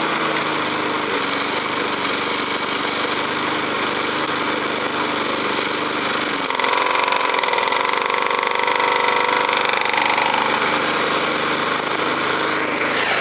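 Briggs & Stratton Sprint 375 single-cylinder four-stroke mower engine running at full throttle with tea fed into its intake. About six and a half seconds in, the engine note shifts and grows a little louder, and it keeps running: the engine shrugs off the tea.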